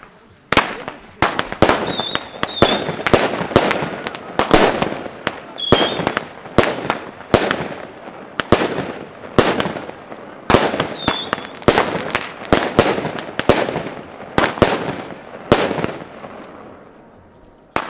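Aerial firework salutes bursting overhead in a quick, even run of sharp bangs, about two or three a second, with a few brief whistles among them. The bangs stop near the end.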